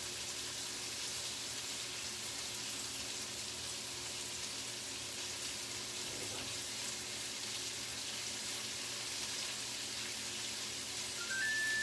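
Bacon sizzling steadily as it fries in a large pan. Near the end, a short run of rising electronic beeps.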